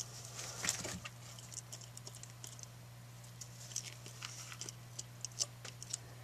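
Irregular light clicks, taps and scratches in a plastic tub of loose substrate, where Chinese water dragons are moving and feeding on dubia roaches. A steady low hum sits underneath.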